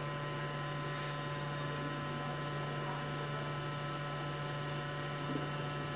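Steady electrical hum, low and unchanging, with a few faint steady higher tones over it and no distinct scraping or cutting sounds.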